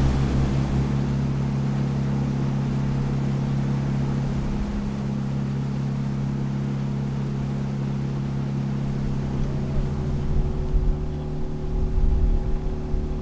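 Motorboat engine running steadily under way across open water, with wind and water noise. About ten seconds in, the engine note shifts slightly and the sound gets bumpier and louder in places.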